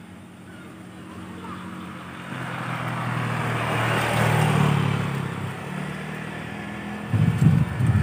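A motor vehicle passing by: engine and road noise swelling to a peak about four to five seconds in, then fading. A few loud low thumps come near the end, and a couple of faint bird chirps sound in the first seconds.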